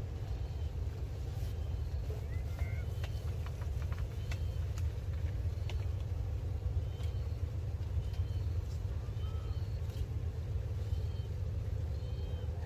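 Steady low outdoor rumble with small birds chirping repeatedly, and a few faint light clicks a couple of seconds in.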